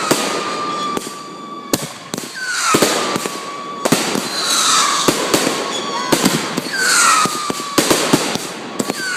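Consumer fireworks going off: a rapid, irregular series of sharp bangs and crackling, with whistling tones that glide down in pitch a few times.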